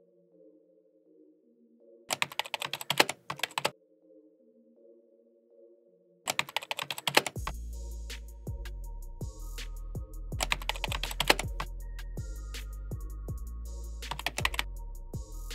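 Short bursts of rapid computer-keyboard typing clicks, four times, over soft background music. About seven seconds in, the music gains a steady deep bass and beat.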